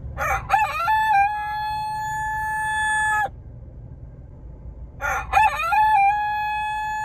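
Rooster crowing twice inside a car, each crow a brief rising start and then one long held note of about three seconds; the second crow starts about five seconds in. A low rumble of the car runs underneath.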